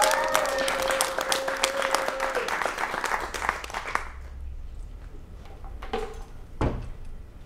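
Audience applauding, with a rising, held whoop or cheer at the start. The clapping dies away about four seconds in, and two thumps follow a couple of seconds later.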